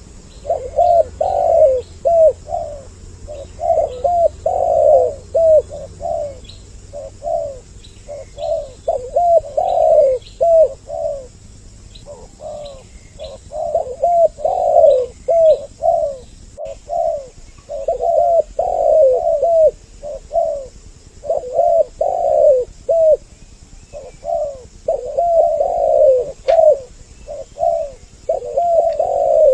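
Spotted doves (tekukur) cooing over and over in quick series of short hooting notes, two birds' calls overlapping as a paired lure call. Faint high chirps of small birds sound behind them.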